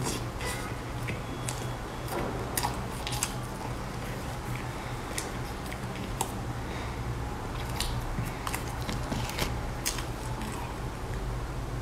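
Close-miked chewing of a soft layered cake: irregular wet mouth clicks and smacks, over a steady low hum.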